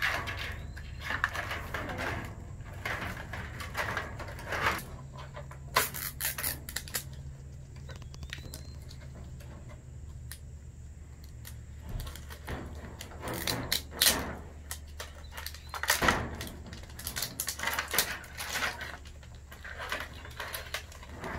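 L.O.L. Surprise Hair Goals doll packaging being peeled and torn open by hand: irregular plastic crinkles, rustles and small clicks and taps, with a steady low hum underneath.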